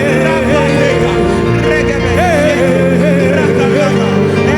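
Gospel worship music: sustained keyboard chords under a voice singing a wordless, wavering melody.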